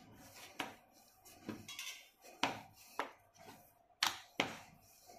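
Wooden rolling pin rolling out a sheet of dough on a wooden chopping board, giving about six light knocks of wood on wood at uneven intervals.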